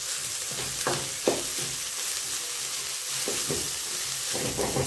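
Chopped peas, carrots, beans and onion sizzling in olive oil in a nonstick kadhai as a wooden spatula stirs them. A steady hiss runs under a few scrapes and knocks of the spatula against the pan.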